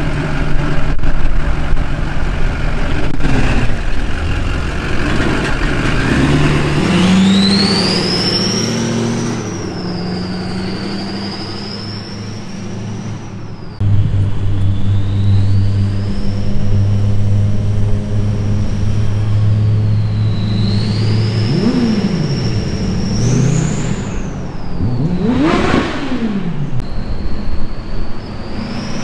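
Duramax LLY 6.6-litre V8 turbodiesel with a 64 mm turbo and 3-inch downpipe, in a GMC Sierra driving by on several passes: a loud, high turbo whistle rises and falls with the throttle over the diesel's hum. About 26 seconds in the truck passes close by and its pitch sweeps down as it goes.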